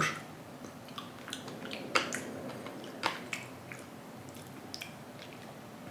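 Wet mouth sounds of someone chewing raw oysters: scattered soft smacks and clicks, a few sharper ones about two and three seconds in.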